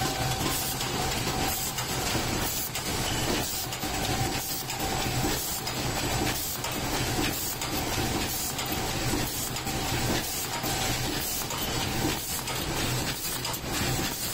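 Mechanical paper plate and tray forming machine running at high speed. Its forming dies and feed make a rapid, steady clatter over a hiss.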